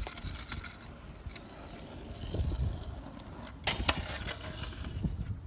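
Stunt scooter wheels rolling on asphalt, then sharp clacks about four seconds in as the scooter hits the concrete ledge, and another hit near the end.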